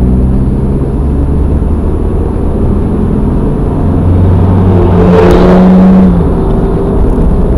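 Car engine and tyre noise heard from inside the cabin as the car accelerates. There is a brief rush of noise about five seconds in.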